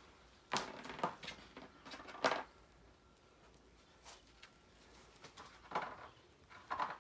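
Loose metal hardware, washers and nuts, clinking as it is handled and fitted onto bumper bolts: a few short sharp clicks and clatters, spread out with quiet gaps between them.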